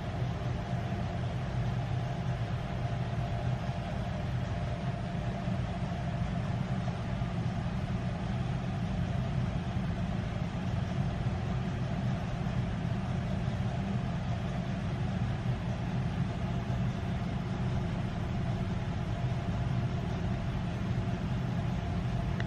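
Steady low mechanical hum that does not change, with a faint higher tone running through it.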